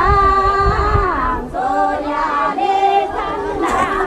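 A group of voices singing a folk song together in held, drawn-out notes, in phrases of roughly a second or two. Low thuds sound under the singing in the first second.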